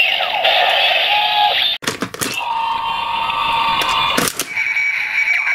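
Kamen Rider Zi-O Ziku Driver toy belt with the Kabuto Ride Watch fitted. Its electronic standby tune plays, then cuts off suddenly about two seconds in as the driver body is spun round, with sharp plastic clicks. An electronic sound effect follows, with more clicks a little after four seconds as the spin completes.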